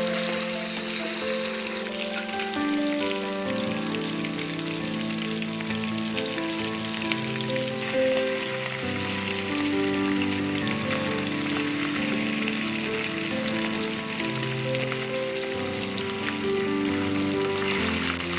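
Small hilsa (khoira ilish) pieces sizzling steadily as they fry in hot oil in an iron wok, with instrumental background music playing under the sizzle.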